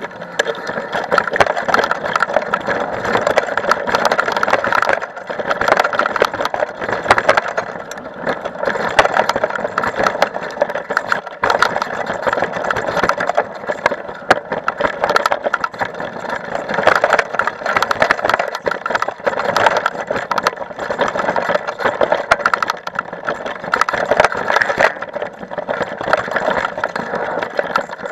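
Mountain bike rolling fast over a bumpy dirt forest trail: a continuous rattling rush of tyres, chain and frame that swells and dips with the terrain.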